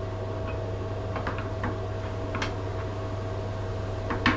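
Scattered light clicks and taps of a knife and avocado halves on a plastic cutting board, a few closer together near the end, over a steady low hum with a faint thin tone.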